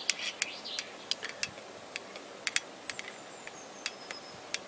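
Irregular sharp clicks from a thumb-pump oil can as oil is squirted onto the camshaft bearing journals of a Toyota VVT-i cylinder head.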